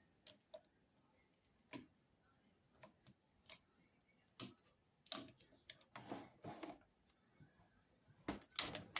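Scattered faint clicks and knocks from the parts of a torn-down electric pressure washer being handled, with a few closer together in the middle and near the end.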